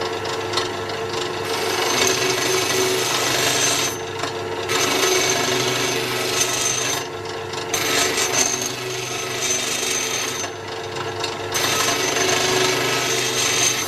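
Bench grinder running with a steady motor hum while a steel billet is pressed against its wheel. The metal grinds in long passes, with three short breaks where the steel is lifted off the wheel.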